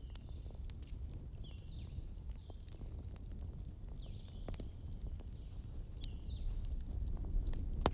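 Bonfire burning with a low steady rumble and scattered crackles and pops, with one sharp pop near the end. Birds chirp in the background with a few short falling calls and one longer whistle.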